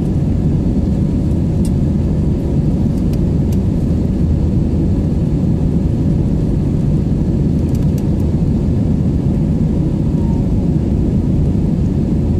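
Steady low rumble of a jet airliner's engines and rushing air, heard inside the passenger cabin during the climb after takeoff, with a few faint clicks.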